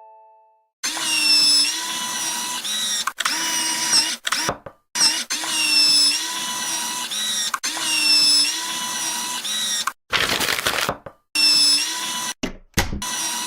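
Power-tool whine, like an electric drill, used as a sound effect and played in short repeated clips that start and stop abruptly. A short noisy burst comes about ten seconds in.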